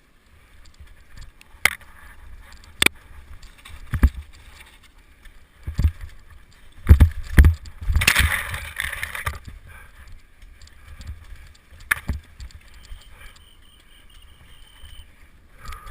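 Mountain bike ridden over rough ground: sharp knocks and rattles as it hits bumps, with a cluster of heavy jolts about seven seconds in followed by a brief rush of gritty noise, over a steady low wind rumble.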